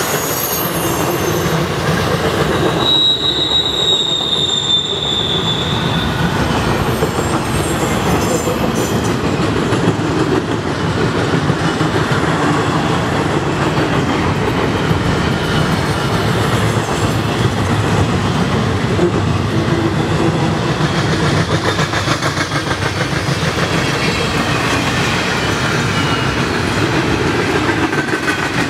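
Freight train cars rolling past, a steady rumble and clatter of wheels on rail. A high wheel squeal rings out about three seconds in for a few seconds, and fainter squeals return near the end.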